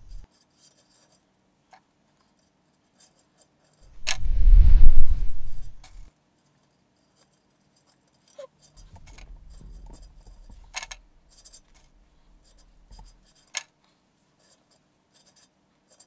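Handling noise of pine-needle sprigs being pushed into wire in a glass vase: a loud rushing rustle about four seconds in, a softer rustle later, and a few light clicks.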